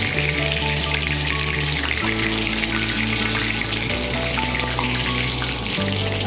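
Hot oil sizzling steadily in a kadai as besan-battered capsicum mirchi vadas deep-fry. Background music plays along with it, with held low notes that change about every two seconds.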